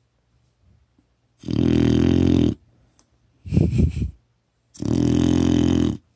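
Four-month-old retriever puppy snoring heavily in her sleep: three loud snores, each about a second long, with the middle one shorter and choppier and quiet breathing in the gaps.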